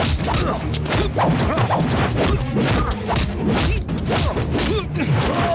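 Film fight-scene sound effects: a rapid, continuous series of punch and body-blow impacts with crashes, several hits a second.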